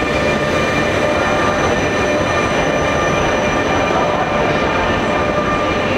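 ÖBB Nightjet sleeping and couchette cars rolling past a platform, a steady rumble of wheels on rail with a few steady high-pitched tones over it.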